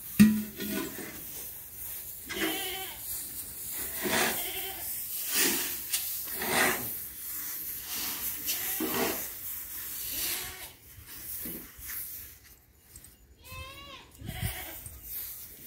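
Goats bleating again and again, about ten separate calls, one near the end quavering. A sharp knock comes right at the start.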